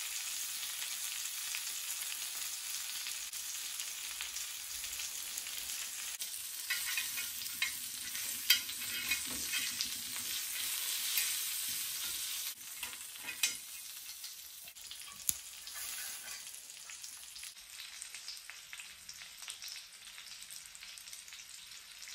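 Lamb and lamb-fat tikka skewers sizzling on a hot flat pan, a steady frying hiss. Around the middle there are several sharp clicks of metal tongs against the skewers and pan as they are turned, and then the sizzle drops in level.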